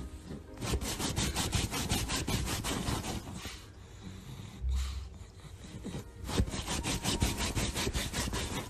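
A pug scratching rapidly at fabric couch cushions with its front paws, in two bouts of quick scratching strokes, several a second, with a short pause between them.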